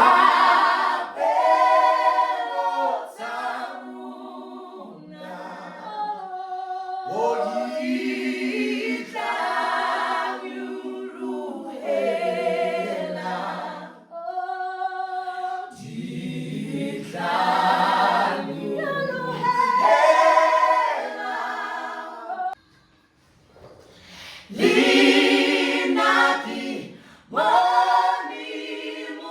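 Unaccompanied gospel singing in layered vocal harmony, recorded as vocal overdubs, with no instruments. It comes in sung phrases with short breaks, and drops out briefly about 23 seconds in.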